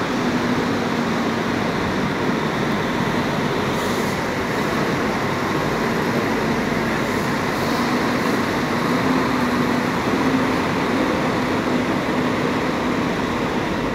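Double-decker long-distance coach driving slowly across a wet bus-terminal apron, its engine running steadily with a low hum that wavers slightly in pitch, over a continuous wash of noise.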